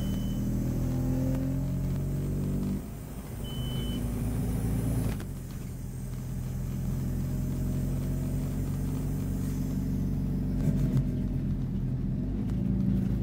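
Diesel engine of a Scania OmniCity N230UD double-decker bus running under way, heard from inside the upper deck. The engine note drops away suddenly twice, about three and five seconds in, then runs on steadily; a short high beep sounds about three and a half seconds in.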